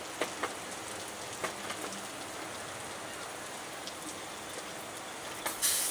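Beef roast and vegetables sizzling on a hot gas barbecue: a steady hiss with scattered pops and crackles, and a louder burst of sizzling near the end.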